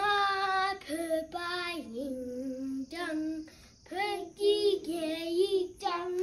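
A young child singing a song, holding notes that step up and down in short phrases.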